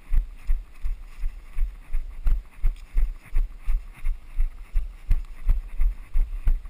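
Running footfalls on a dirt trail, heard as an even rhythm of dull thuds, about three a second, jolting the body-worn camera.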